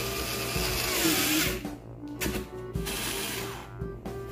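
Small cordless electric screwdriver with a socket bit running in two spells, driving nuts onto bolts that clamp a plastic radiator fan shroud to a metal mounting bracket. Background music plays throughout.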